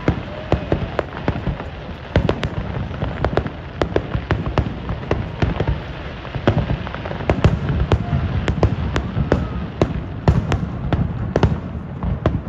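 Fireworks display going off: a rapid run of sharp bangs and crackles, several a second, over a steady low rumble.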